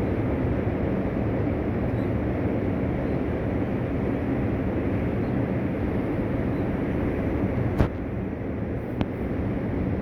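Heavy surf: a steady low rumble of large waves breaking, with two sharp clicks near the end.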